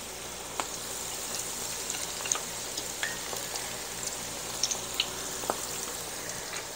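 Panko-breaded baby corn deep-frying in hot oil in a cast-iron skillet: a steady bubbling hiss with scattered sharp crackles and pops.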